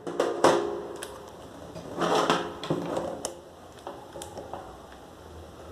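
Light clicks, taps and rustles from handling a smartphone and its packaging: a few short knocks near the start and around two seconds in, with softer taps between.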